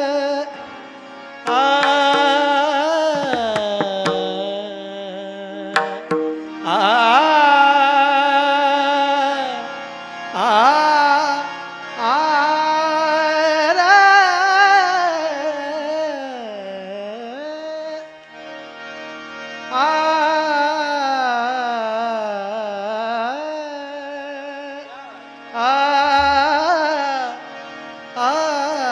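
A male singer drawing out long, melismatic vowel phrases in a Warkari devotional bhajan, his pitch gliding and wavering over a steady held drone. A few mridang strokes come in during the first phrases.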